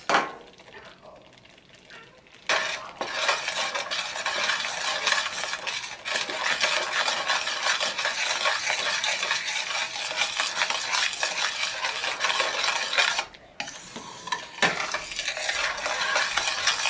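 Spoon stirring thick Alfredo cream sauce in a stainless steel skillet: steady scraping and stirring for about ten seconds, a short pause, then more stirring. It opens with a single sharp tap.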